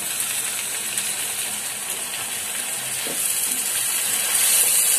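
Sliced onions frying in hot oil in a pan with freshly added red chilli paste: a steady sizzle that grows louder about three seconds in and again near the end.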